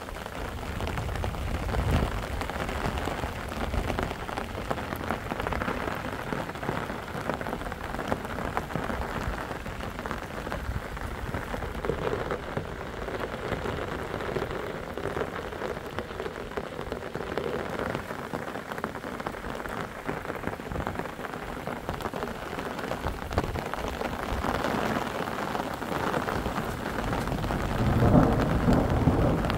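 Steady rain falling, a dense patter of drops, with a louder low rush near the end.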